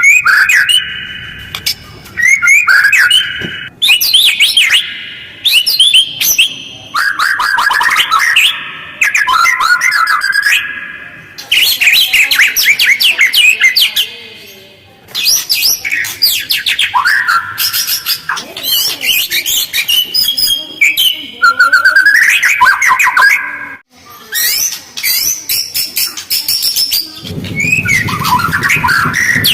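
White-rumped shama (murai batu) singing a fast, harsh, chattering song of rapid varied phrases separated by short pauses, the rough rapid-fire style used as a lure to provoke other shamas into answering.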